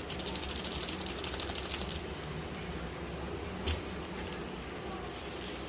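Plastic food packaging being handled: rapid crinkling for about two seconds, then a single sharp click a little after halfway.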